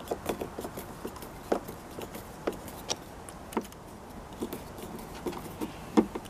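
Light, irregular clicks and taps of a screwdriver and small screws being worked out of a car's interior door panel.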